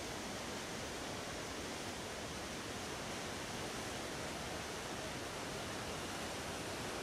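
Steady rushing of the Rhône in flood pouring over a standing wave and rapids, an even hiss with no breaks.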